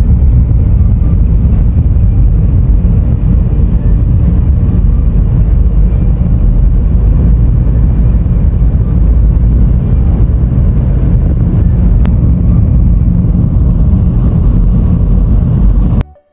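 Steady low rumble of a car driving, road and wind noise heard from inside the cabin; it cuts off suddenly near the end.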